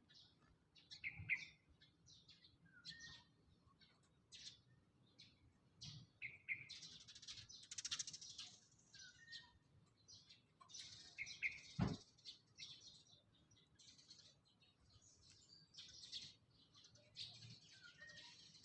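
Small birds chirping: many short, high, fairly quiet calls scattered irregularly, thickening into denser twittering in places, with one sharp click about twelve seconds in.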